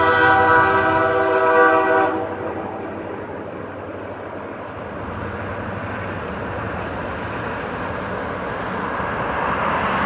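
Train horn sounding one steady chord that cuts off about two seconds in, followed by the steady rumble of the train running, which grows a little louder near the end.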